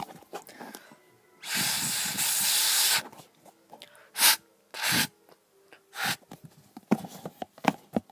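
A loud, steady hiss about a second and a half long, then three shorter hisses and scattered clicks and knocks.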